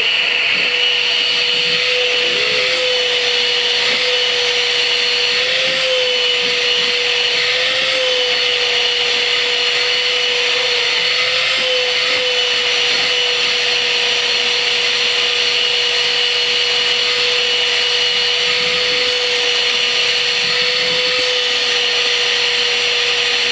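Vacuum cleaner running steadily, a loud hiss with a hum that wavers slightly in pitch.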